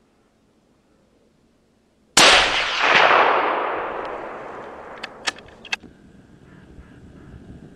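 .308 Winchester rifle shot: one loud crack about two seconds in, rolling away in a long echo that dies off over about three seconds. A few sharp clicks follow a few seconds later.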